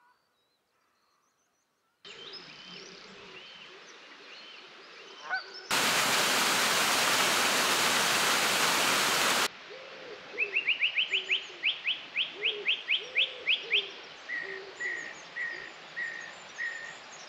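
After a couple of seconds of near silence, birds calling: low calls repeating through the rest of it, and from about ten seconds in a quick run of rising high notes that speeds up, followed by five short whistled notes. A loud steady hiss cuts in for about four seconds near the middle.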